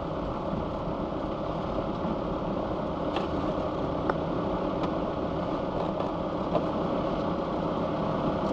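A vehicle driving slowly with a steady hum of engine and road noise, and a couple of faint clicks partway through.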